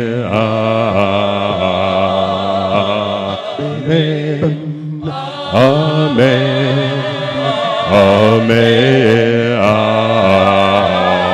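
A cappella gospel vocal group singing sustained close harmonies over steady low held notes, amplified through microphones. The voices dip briefly just before the five-second mark, then swell back in.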